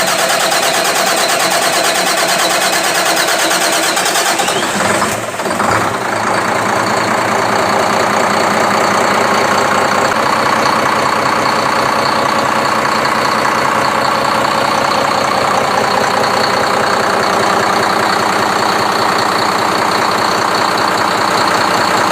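Speedboat engine running after its hard start, a loud, steady mechanical sound. About five seconds in it dips briefly, then settles into an even run.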